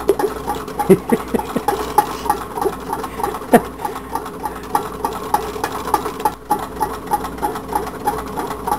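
Homemade tin-can Stirling engine running, its crank and displacer ticking evenly about three times a second, with a couple of louder knocks in the first half. The builder hears the displacer touching the bottom of its stroke, because the crank lobe is a little short.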